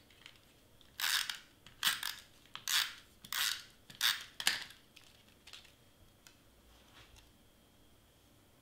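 Glue tape roller run along cardstock in about six short, quick strokes, followed by a few faint clicks.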